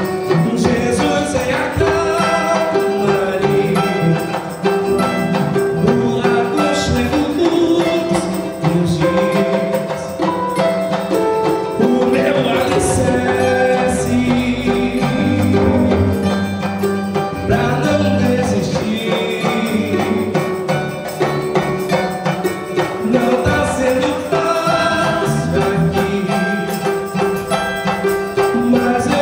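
Live samba gospel worship band playing, with electric bass and drums under a male lead vocalist singing into a microphone.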